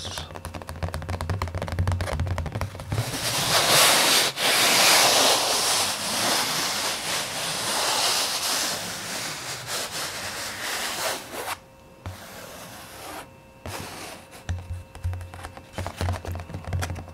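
Fast ASMR tapping close to the microphone, in quick rapid-fire strokes, giving way to a long stretch of loud, rough rubbing about three seconds in. The sound drops away briefly, then the rapid tapping comes back near the end.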